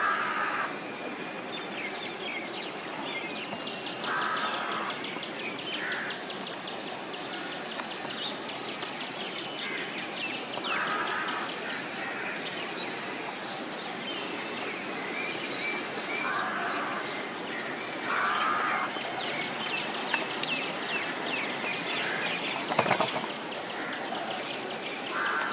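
Small birds chirping over a steady background of outdoor noise, with short calls recurring every few seconds. A single sharp knock comes near the end.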